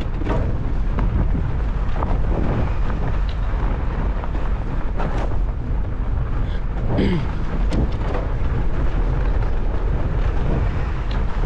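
Fat bike riding over a snowy trail: wind buffeting the microphone and a steady low rumble from the tyres and frame, with scattered clicks and rattles from the bike and a brief falling squeak about seven seconds in.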